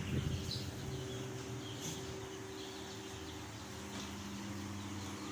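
Young chicks peeping faintly and sporadically over a steady low hum.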